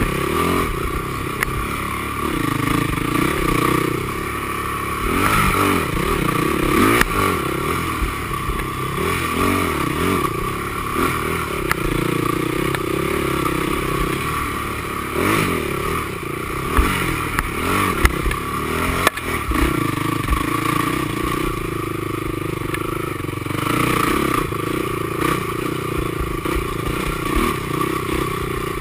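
Honda TRX450R quad's single-cylinder four-stroke engine revving up and down at race pace off-road, heard from an onboard GoPro, with scattered sharp knocks and clatter over rough ground.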